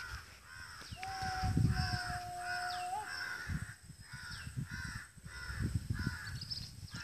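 A flock of crows cawing over and over, two or three calls a second, with thinner falling bird calls mixed in. About a second in, a steady tone holds for about two seconds and ends with a small upward flick.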